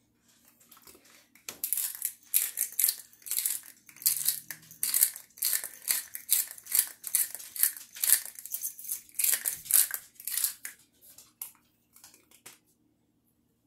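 Handheld pepper grinder being twisted, its mill crunching peppercorns in a fast run of short crisp grinding strokes that starts about a second and a half in and stops shortly before the end.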